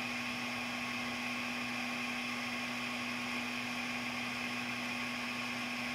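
Steady electrical hum with a faint hiss: room tone, with no other sound.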